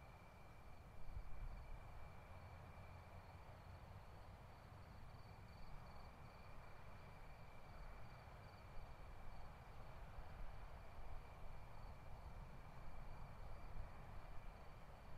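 Quiet room tone with a steady faint high-pitched whine and a low rumble, and a few soft handling noises as wooden popsicle sticks are pressed together.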